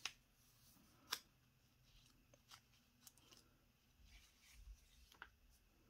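Near silence with a few faint paper rustles and ticks, the sharpest about a second in: pages of a Hobonichi planner being handled and turned.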